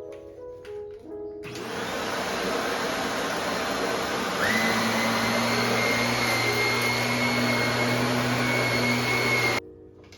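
A motorised household appliance switches on and runs with a loud, steady whine. About four and a half seconds in it steps up louder and higher, then it cuts off abruptly.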